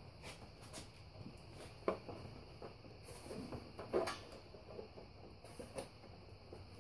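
Radiator bug screen being worked into its notches by hand: scattered light knocks, clicks and scrapes of the screen against the radiator and frame, with the sharpest clicks about two and four seconds in.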